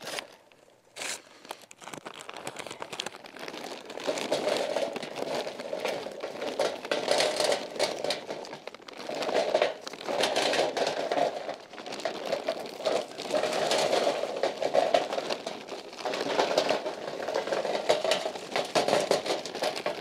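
Charcoal briquettes being poured out of a paper bag and clattering onto a pile, with the paper bag crinkling, in uneven spells of rattling and rustling from about four seconds in.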